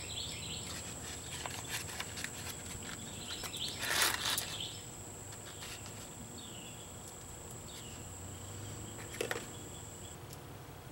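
Outdoor background: a steady high-pitched insect drone that stops near the end, with several short bird calls. Light clicks of small parts being handled, and a louder scratchy burst about four seconds in.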